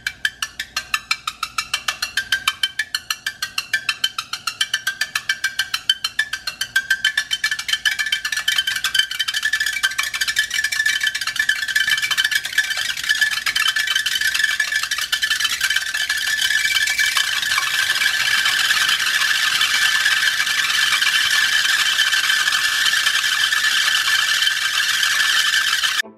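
Water-swollen Orbeez polymer beads bouncing on a hot ceramic-coated frying pan. It starts as rapid ticking, several hits a second, which thickens as more beads are added into a continuous buzzing rattle in the second half. The beads skitter on a cushion of steam (the Leidenfrost effect) instead of settling on the pan.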